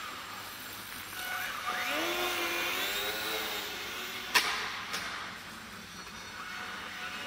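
Small indoor RC plane's electric motor and propeller whining, rising in pitch as the throttle opens for about two seconds. A sharp click follows, the loudest sound, with a fainter one half a second later.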